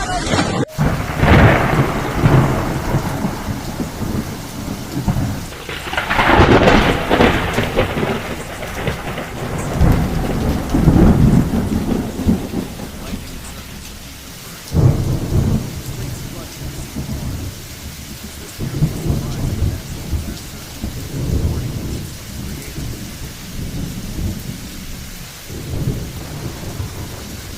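Heavy rain falling steadily, with low rumbling swells every few seconds that are loudest a third of the way in.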